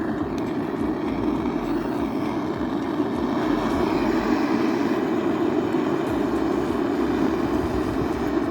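Steady rushing noise of a heating device run against a sealed soda can, raising its temperature and pressure. The noise starts abruptly and holds steady with no break.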